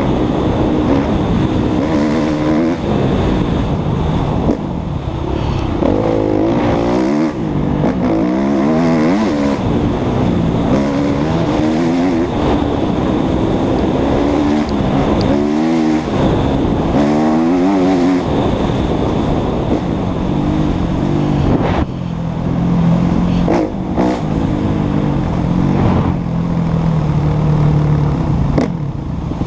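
Dirt bike engine revving up and falling back again and again as the throttle is opened and closed, with a couple of brief cuts near the end before it settles into a steadier, lower note.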